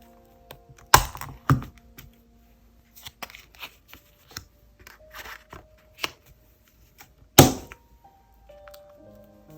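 Sharp taps and knocks of paper and stationery being handled on a desk: one about a second in, another half a second later and the loudest near the end, with softer paper rustling and tearing between. Faint background music runs underneath.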